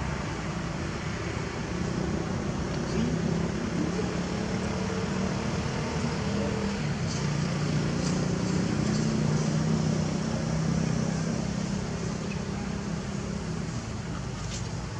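Steady outdoor background noise with a low droning hum, a little louder in the middle.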